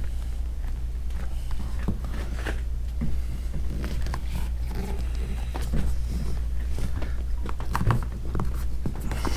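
Hands setting a vinyl D-ring patch onto a glued inflatable paddleboard and pressing it down: scattered short scuffs, rubs and clicks over a steady low hum.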